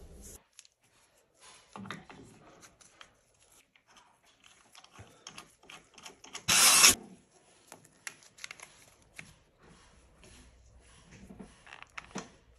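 Workbench handling noises from engine assembly: scattered light clicks, knocks and rubbing of metal parts and tools. About halfway through comes one loud, half-second rush of noise, the loudest sound here.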